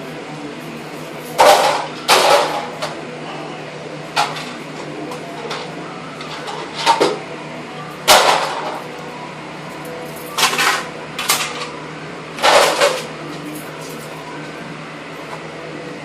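Parts of a dismantled plastic printer clattering and knocking as they are handled and dropped: about nine sharp, irregular knocks a second or two apart, over a steady faint hum.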